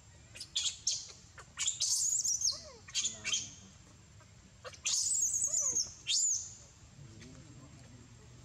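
A baby monkey's shrill, wavering cries: several short calls, then two longer ones of about a second each.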